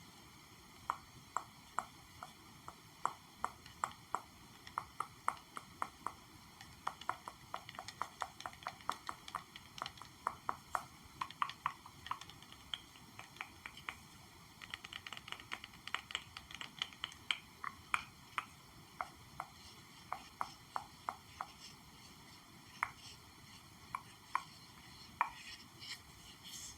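Light ASMR tapping on an object: a long run of short, crisp taps, a few per second, coming faster in the middle and thinning out towards the end.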